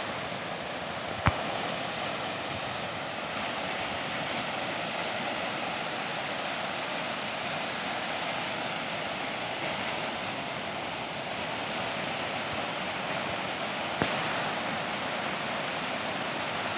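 Rough sea surf, waves breaking along the shore in a steady rush, with a sharp click about a second in and another near the end.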